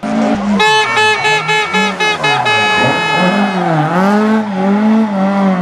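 Rally car engine revving hard, its pitch rising and falling with gear changes and lifts through a bend. Over it, a horn sounds in about eight quick blasts and is then held for about a second.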